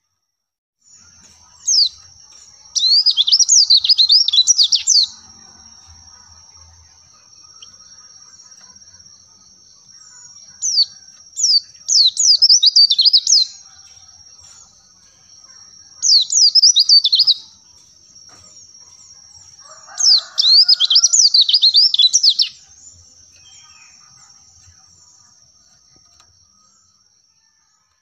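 White-eye (pleci, Zosterops) singing: four bursts of rapid, twittering high chirps, each one to three seconds long, with a thin steady high whine underneath.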